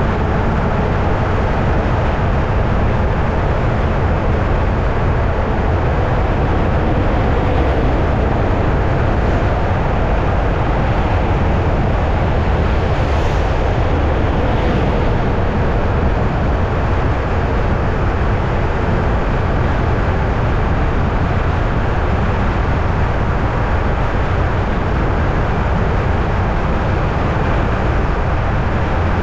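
Steady low rumble of a moving vehicle, even and unbroken throughout.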